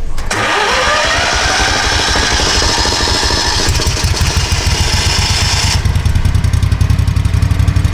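Gas-engine Versa-Vac insulation removal vacuum starting up just after the start: its fan whine rises in pitch over the first couple of seconds over a loud rush of air, with the engine running steadily underneath. Near six seconds in, the high rushing drops away, leaving the engine and fan running.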